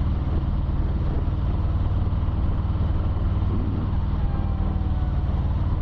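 Harley-Davidson Low Rider S V-twin engine running steadily under way, with wind rushing past the helmet microphone. A faint siren wail rises and falls in the background during the second half.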